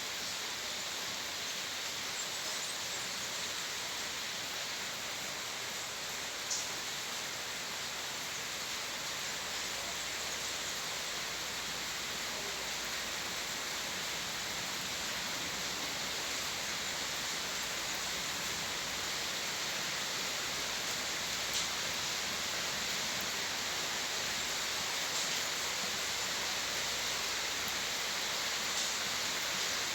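Steady rain falling without thunder, an even hiss, with a couple of sharper single drop ticks, one about six seconds in and another about twenty-one seconds in.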